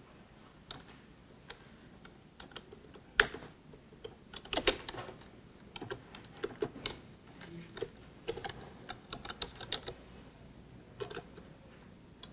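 Typing on a computer keyboard: irregular key clicks in short runs, the loudest a little past three seconds and again around four and a half seconds.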